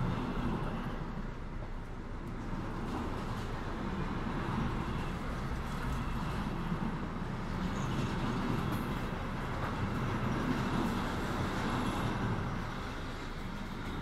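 A passenger train's running rumble, heard from inside the carriage as another train passes, swelling a little in the middle and easing off near the end.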